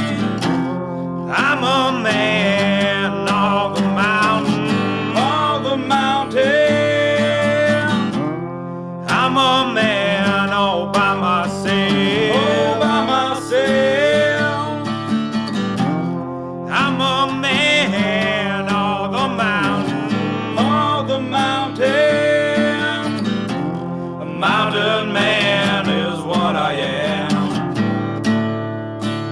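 Country music: strummed acoustic guitar with a wavering lead melody over sustained chords, an instrumental stretch of the song.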